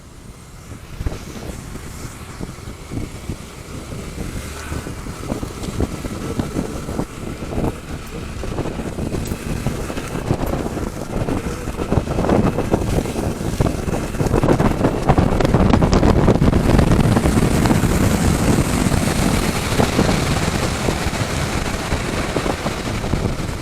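Strong wind buffeting the microphone of a rider on a moving motorcycle: a heavy, fluttering rumble with a hiss above it that grows louder over the first fifteen seconds or so and then holds.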